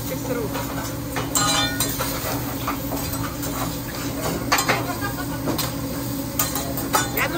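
Metal spatula and knife clanking and scraping on a teppanyaki griddle as vegetables are chopped and tossed, with a ringing clang about a second and a half in, over faint sizzling and a steady low hum.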